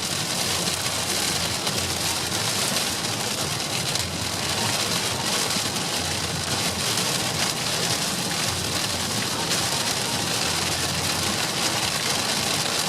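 Heavy rain hitting a moving car, heard from inside the cabin as a steady hiss over tyre and road noise.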